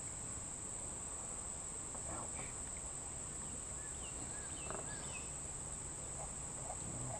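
Insects trilling steadily in one continuous high-pitched buzz, with a few faint short chirps over it.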